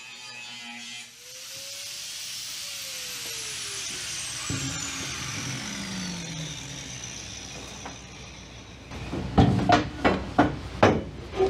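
A power tool's high whine rises briefly, then winds down slowly over several seconds over a steady hiss. Near the end, about five sharp hammer blows on metal, roughly two a second, as the aluminium bulwark corner piece is fitted.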